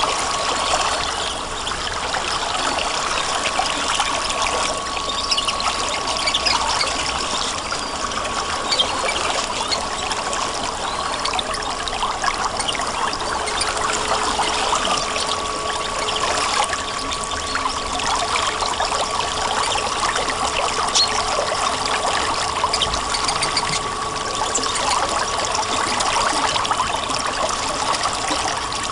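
Running water flowing in a steady, even rush, with a faint steady high tone underneath.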